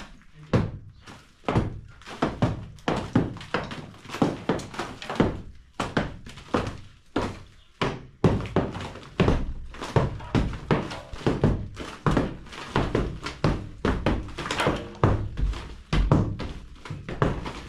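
Repeated dull knocks of a hand tool striking a masonry wall, about two a second in an uneven rhythm, as the wall is broken open.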